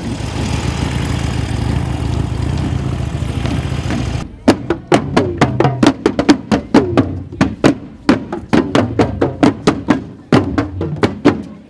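A steady rush of noise for the first four seconds, then Moluccan tifa drums beaten with sticks in a marching rhythm, about three strikes a second, each with a short falling ring, with a brief pause near the end.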